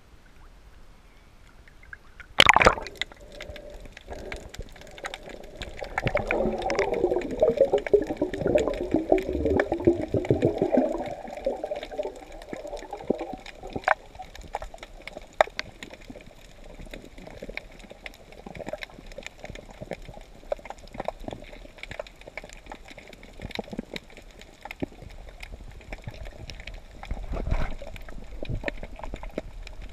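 Water heard from just under the surface while snorkelling: a sharp splash about two and a half seconds in, then a burst of gurgling and bubbling from about six to twelve seconds, followed by scattered faint clicks and crackles.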